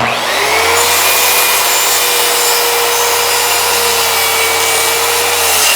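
Electric power saw cross-cutting a wooden board: the motor's steady whine over the cutting noise, spinning up at the start and winding down near the end as the saw is switched off.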